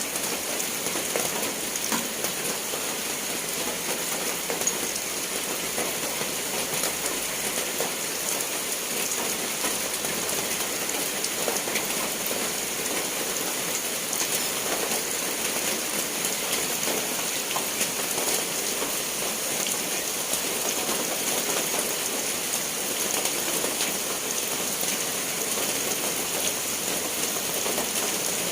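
Steady rain falling, with a dense patter of individual drops hitting surfaces.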